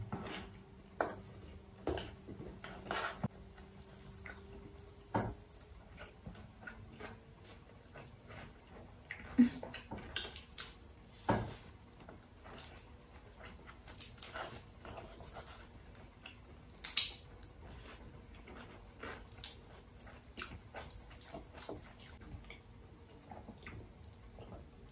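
Faint close-up eating sounds: chewing, lip smacks and shells being peeled off shrimp by hand, heard as scattered short clicks and pops, over a faint steady hum.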